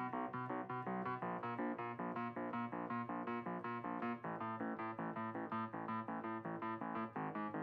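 Background keyboard music, piano-like, a steady run of evenly struck notes at about four a second.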